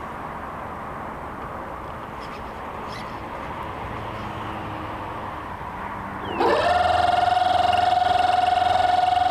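Steady rush of wind and water aboard a radio-controlled model schooner. About six seconds in, a small electric motor starts with a quick rising whine, then holds one steady high whine.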